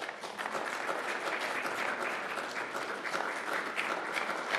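Audience applauding, starting suddenly and going on at a steady level.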